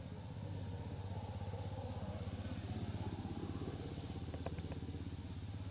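A small engine idling steadily with a low, fast, even pulse, with a faint high chirp about four seconds in.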